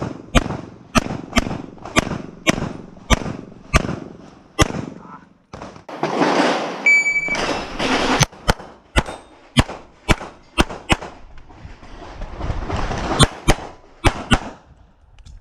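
A string of 9mm pistol shots from a CZ Shadow 2 fired rapidly in an IPSC stage, about two sharp shots a second. Two pauses fill with a noisy hiss, and a short ringing tone sounds about seven seconds in.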